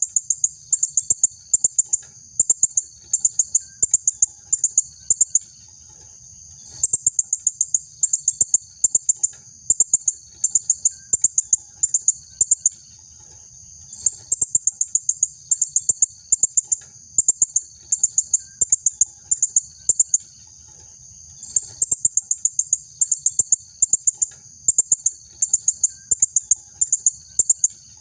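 Female blue-crowned hanging parrot (serindit) calling: short, rapid bursts of thin, high-pitched notes repeated over and over, with pauses of about a second now and then.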